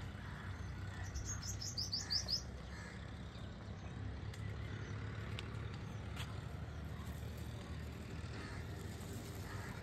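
A small bird's quick run of about eight high, falling chirps about a second in, over a steady low outdoor rumble.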